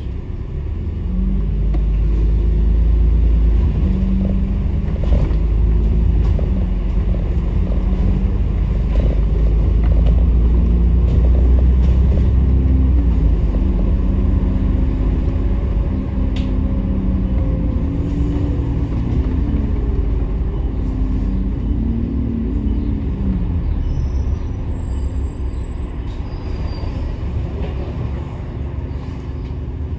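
Bus engine and road rumble heard from inside the cabin. The engine note steps up and down through the gears, pulling hardest from about a second in until about halfway through, then easing.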